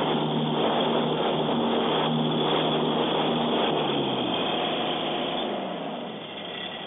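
Tractor engine and rotary mower deck running steadily while mulching leaves. About four seconds in, the engine pitch falls and the sound dies down as it throttles back.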